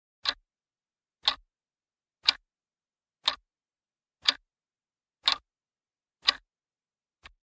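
Clock-tick sound effect counting down a seven-second quiz timer: seven sharp ticks, one a second, then a softer double click near the end.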